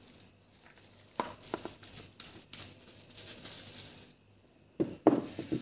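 Chopped celery tipped from a bowl onto vegetables in a plastic bowl: light rustling and scattered taps, with a few louder knocks near the end.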